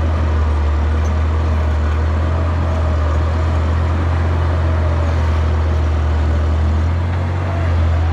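Caterpillar D6D bulldozer's six-cylinder diesel engine running steadily, with a faint wavering whine over it. The engine note dips briefly about seven seconds in and then picks back up.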